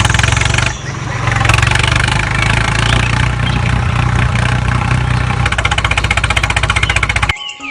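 A motor running loud with a fast, even rattling pulse. It eases briefly about a second in and cuts off abruptly near the end.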